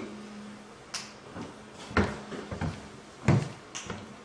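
A series of irregular knocks and thumps, about seven in all, starting about a second in, with a faint steady hum in the first second.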